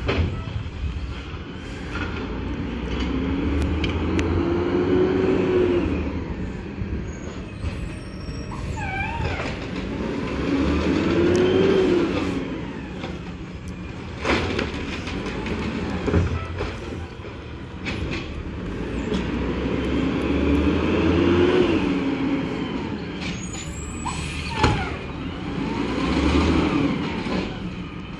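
Automated side-loader garbage truck emptying curbside carts: its diesel engine revs up and falls back three or four times as the hydraulic arm lifts and dumps each cart, with sharp knocks as the cart is banged into the hopper and a brief squeal.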